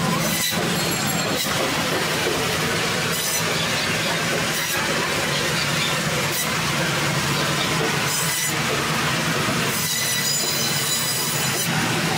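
Electric meat band saw running with a steady hum, its blade cutting through a whole rohu fish, with brief high rasps every second or two as the fish is pushed through.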